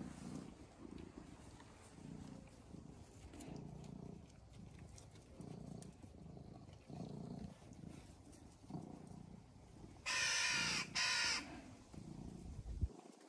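Low, rhythmic play grumbles from a German shepherd mouthing a cat, about one a second. About ten seconds in, a loud harsh call sounds twice in quick succession.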